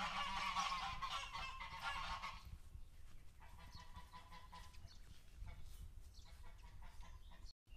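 Farmyard fowl calling in a quick run of repeated pitched cries, loudest in the first two seconds or so, then fainter scattered calls before the sound cuts off just before the end.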